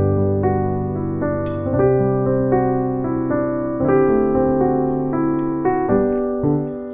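Background piano music: a melody of notes changing about every half second over held low notes.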